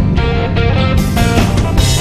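Rock music with guitar and drums; the drums and cymbals get busier about halfway through.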